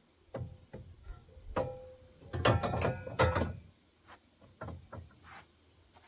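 Ratchet wrench clicking in quick runs as bolts are run in and tightened on a steel bumper, with a few separate metal clicks and clinks. The densest, loudest ratcheting comes about two and a half to three and a half seconds in.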